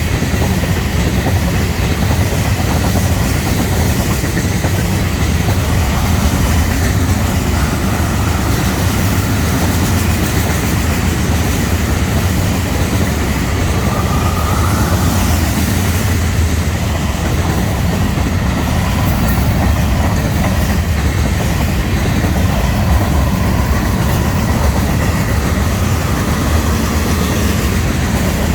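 Florida East Coast Railway freight train rolling past at speed: a steady rumble of wheels on rail with clickety-clack from the cars, and a faint brief wheel squeal about halfway through.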